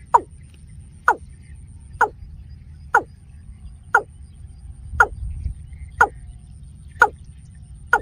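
Watercock calling: a regular series of short, falling notes, about one a second.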